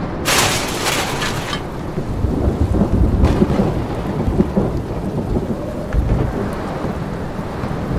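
Thunderstorm: a deep, uneven rumble of thunder with rain, and a second or so of sharp hissing just after the start.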